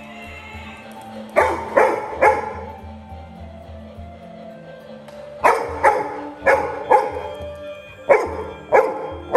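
Labrador retriever puppy barking in short bursts: three quick barks about a second and a half in, then about seven more from about five and a half seconds on. Background music with a steady low beat runs underneath.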